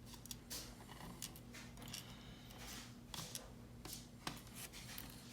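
Faint, scattered clicks and light scraping of small metal lock parts being handled, as pins and springs are taken out of a disassembled lock cylinder.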